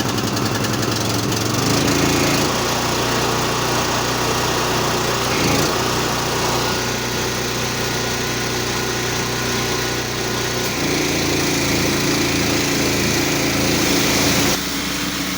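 Gas-engine pressure washer running steadily, its tone shifting a few times as the load changes, with a step down near the end.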